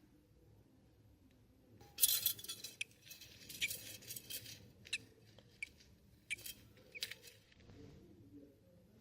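Budgie chicks giving raspy, hissy begging calls in a string of short bursts, starting about two seconds in and repeating for several seconds, the first burst the loudest.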